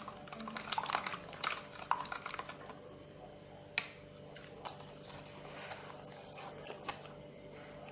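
Plastic spoon stirring and tapping in a small bowl as baby porridge is mixed with water: a busy run of light clicks and scrapes over the first three seconds, then a few sparse taps.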